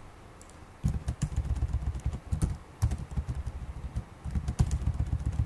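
Computer keyboard typing in several short bursts of keystrokes with pauses between, starting about a second in.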